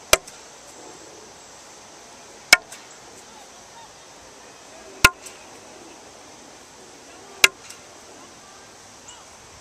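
Bottle caps pitched at a Beteyah target sign, striking it with four sharp knocks about two and a half seconds apart, each ringing briefly. A steady faint high hiss runs underneath.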